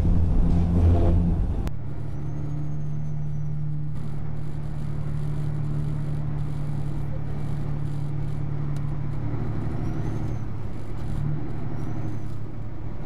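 Music cuts off abruptly about two seconds in. It gives way to a semi-truck's engine and road noise heard from inside the cab, a steady low drone.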